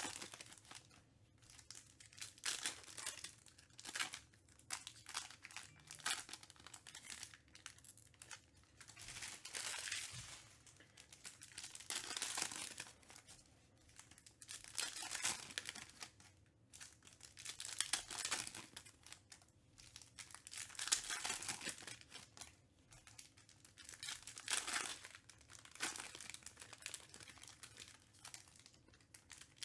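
Foil wrappers of Panini Select basketball card packs crinkling and tearing open in repeated irregular bursts, with the cards inside being slid and flicked against each other as they are gone through.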